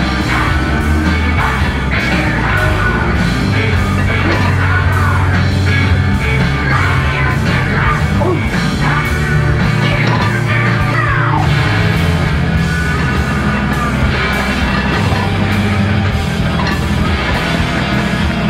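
Loud heavy rock music with a steady drum beat.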